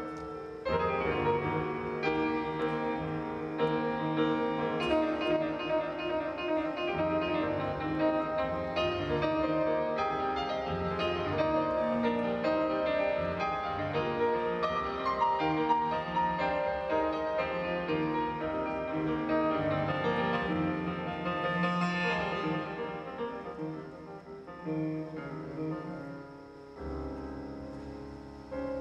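Solo piano on a Roland stage keyboard, playing chords under a melody line with notes left to ring. It grows softer over the last few seconds.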